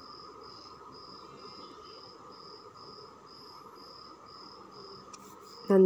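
A cricket chirping steadily, about two short high-pitched chirps a second, over a faint steady background hum.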